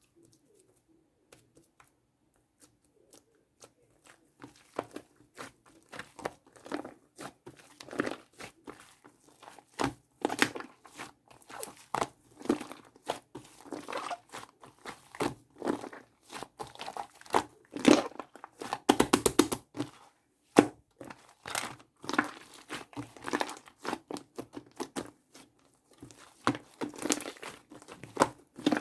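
Shaving-foam slime being kneaded and pressed by hand: a dense run of irregular wet clicks and pops, faint at first and thickening a few seconds in.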